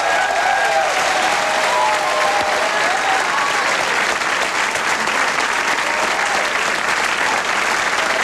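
Studio audience applauding, steady and dense.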